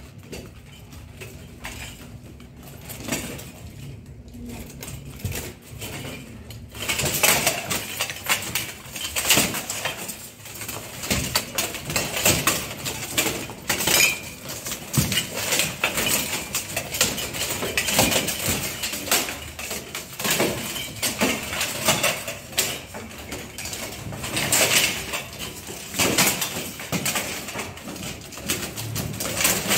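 Steel plate armour clanking and clattering as two armoured fighters spar and grapple. Quieter for the first several seconds, then a dense run of metallic knocks and rattles from about seven seconds in.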